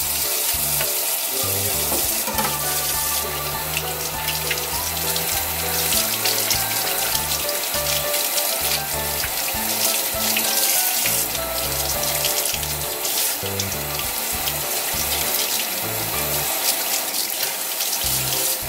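Kitchen tap running steadily into a stainless steel sink, with water splashing over a fish and hands as it is rinsed under the stream. Background music with a low bass line plays underneath.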